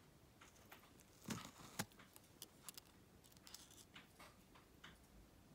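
Quiet handling noise: faint clicks and taps from a jewellery box's velvet insert and a fine rose-gold chain necklace being lifted out, with two sharper knocks about a second and a half in.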